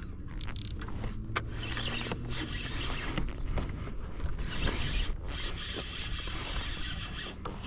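Daiwa BG MQ 2500 spinning reel being cranked to bring in a hooked redfish: a steady whirring with a few sharp clicks.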